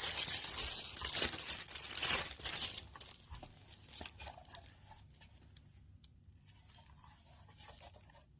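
Plastic packaging crinkling and tearing as it is handled and pulled open. The crackle is dense and loud for the first three seconds, then drops to fainter, scattered rustles and small clicks.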